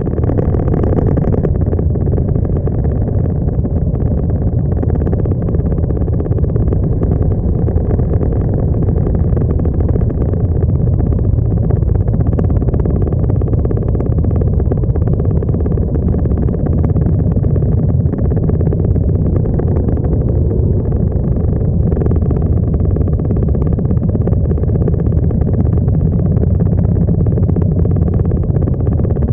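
Several touring motorcycles' engines running steadily at low speed in a slow-moving column, a deep continuous rumble, close up on the camera's own bike.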